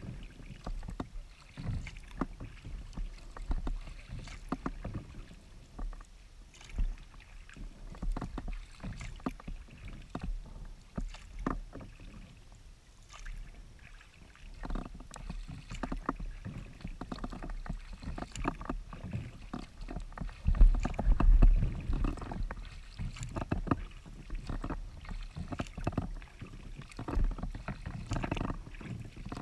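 Paddling a Klepper Aerius II folding kayak: paddle strokes splashing in the water, with many small irregular clicks and knocks on the boat. A louder low rumble comes about two-thirds of the way through.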